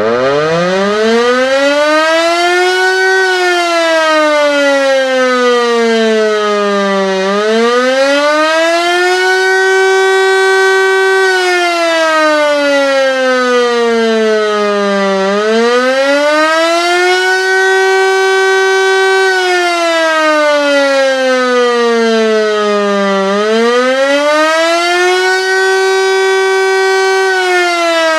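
Landert MSL-3 rotary motor siren spinning up and sounding the Austrian civil-protection 'Alarm' signal, the warning to seek shelter: a wailing tone that rises, holds briefly at the top and falls again, about once every eight seconds.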